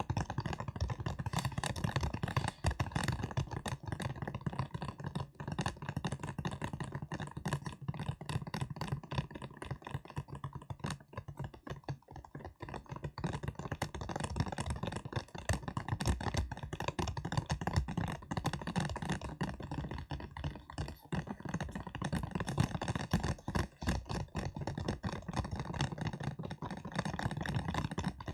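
Fingertips tapping and crackling rapidly, close up: a dense, continuous patter of small clicks like fast typing.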